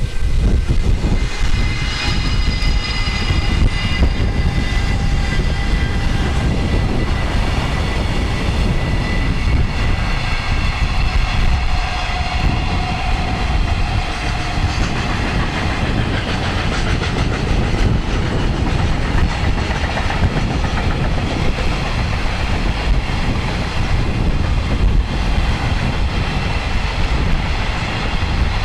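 Long freight train passing close by: a steady rumble and clatter of wagon wheels on the rails, with high ringing tones over it.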